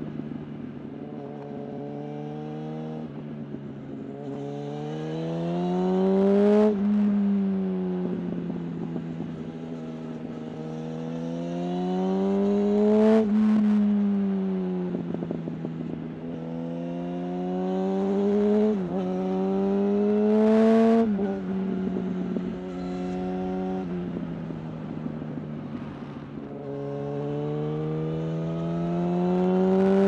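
Yamaha R1's inline-four engine under way: the revs climb under acceleration, then fall away as the throttle rolls off, several times over, with a few sudden drops in pitch.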